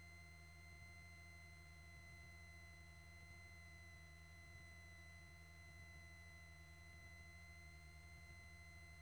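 Near silence on the cockpit intercom audio line: only a faint, steady electrical whine and low hum.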